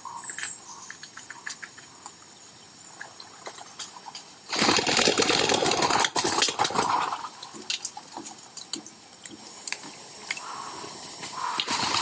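Wood pigeon's wings clattering as it bursts up from the water's edge, a rapid flurry of wingbeats about four and a half seconds in that lasts some two seconds. Near the end, wingbeats come again as a wood pigeon flies down to the bank.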